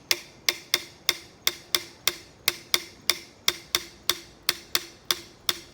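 Homemade percussion: a short piece of 2-inch PVC pipe struck in a steady rhythm, about three sharp hits a second, each with a brief hollow ring.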